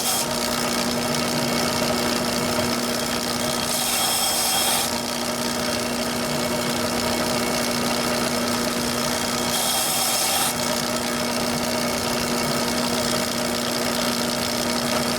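Small electric sander running with a steady hum. Twice, about 4 and 10 seconds in, there is a hiss of roughly a second as a piece of wood is pressed briefly against the abrasive to trim it.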